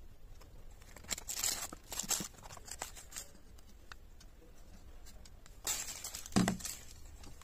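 Cardboard, paper and plastic bubble wrap rustling and crinkling in a few short bursts as a small boxed alarm clock is unpacked, with a soft knock near the end as the clock is handled on the table.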